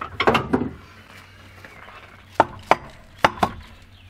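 Mallet blows on the cylinder head of a Suzuki RG500 engine, knocking the head loose from the cylinders. A short cluster of knocks at the start, then four sharp blows in two pairs from about two and a half seconds in.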